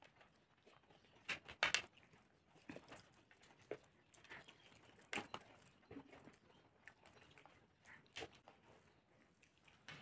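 Faint eating sounds: scattered soft clicks and wet smacks of fingers mixing rice on plates and of mouths chewing.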